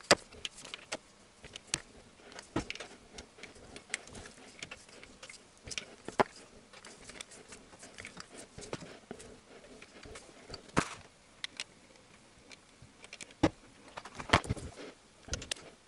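Scattered sharp clicks and metallic clinks of a ratcheting torque wrench and socket as bolts on an open cylinder head are tightened one after another, with a louder click about 11 s in and a short cluster near the end.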